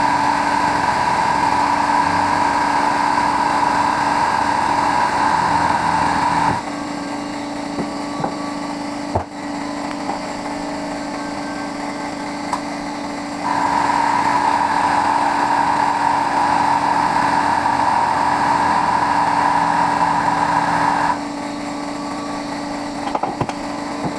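Angle grinder with a thin 4 1/2-inch cut-off wheel cutting into a light ballast's casing to get at the copper, in two stretches of about seven seconds. The tool keeps running more quietly between the cuts.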